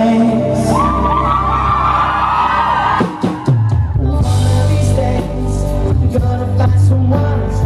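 Live pop band playing with a male singer at the microphone, recorded from the audience in a hall. About three seconds in the band briefly drops out before the bass comes back in strongly.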